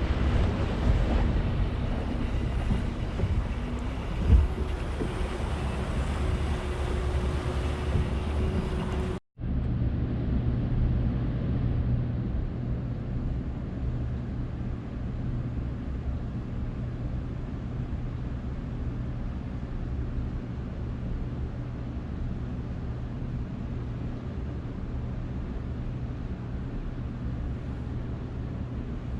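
Boat engine running, with wind and water noise. It drops out for a moment about nine seconds in, then carries on steadier and duller, with a low hum.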